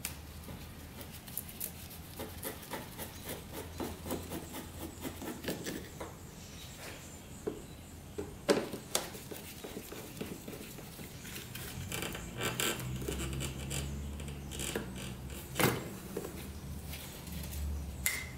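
Hand tools working on an ATV carburetor: a screwdriver and metal parts clicking, scraping and rattling, with a couple of sharper knocks about eight and a half and fifteen and a half seconds in. A low hum runs underneath from about twelve seconds in.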